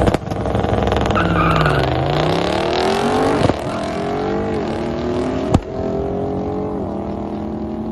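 A tuned Audi S2 with its turbocharged five-cylinder and an Audi S8 at full throttle off a drag-strip launch, side by side. The engine notes climb and then drop sharply at each upshift, about three times. Sharp cracks come at the first two shifts, and the sound fades as the cars pull away.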